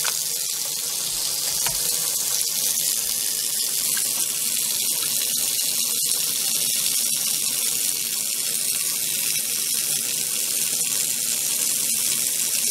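Kitchen faucet running steadily into a stainless steel sink, the stream splashing in the basin with an even hiss.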